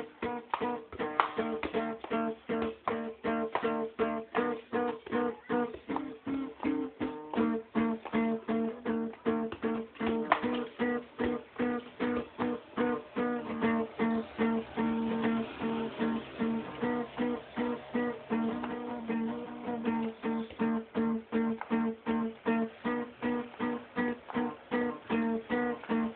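Acoustic guitar strummed in a steady, fast rhythm, about three strokes a second, the chords ringing between strokes.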